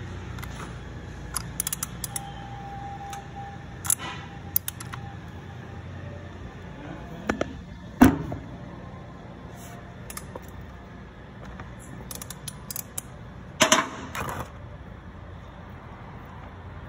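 Metal hand tools clicking and clinking as a 17 mm socket on an extension works the motorcycle's oil drain bolt loose, with a sharp knock about eight seconds in and a cluster of clicks a little before the end, over a low steady hum.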